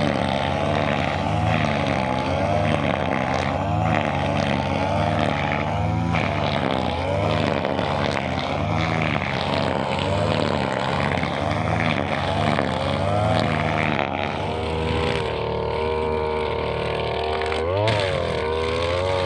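Brushcutter engine running under changing load, its pitch wavering up and down as it cuts. Near the end it steadies, then revs up and drops back once.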